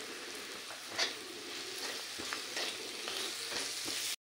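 Green peas shallow-frying in oil in a metal kadhai, a steady sizzle, while a steel spatula stirs them with several sharp scrapes against the pan. The sound cuts off suddenly near the end.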